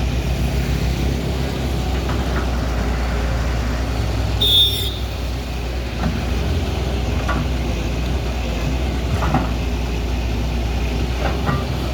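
Excavator's diesel engine running steadily, a low rumble, with a short hiss and a high squeal about four and a half seconds in.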